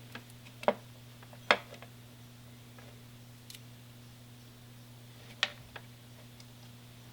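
A few sharp clicks and taps of small metal and plastic parts being handled, the loudest about a second and a half in, over a steady low electrical hum.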